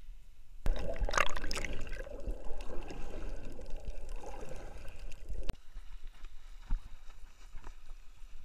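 Splashing as an action camera plunges under the sea surface, then muffled underwater bubbling and gurgling heard through the camera, which stops abruptly about five and a half seconds in. Quieter water sounds with a few light ticks follow.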